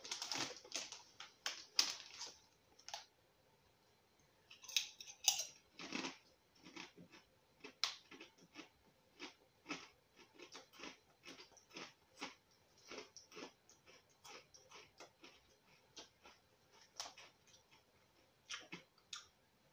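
Someone chewing thick crisps (Max Double Crunch), a run of short, sharp crunches, two or three a second. About five seconds in there is a brief rustle, like the foil crisp packet being handled.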